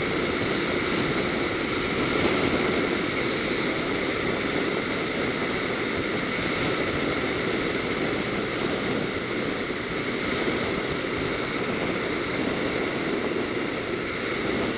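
Steady rush of wind buffeting the camera's microphone on a motorcycle riding at highway speed, mixed with the bike's running and road noise.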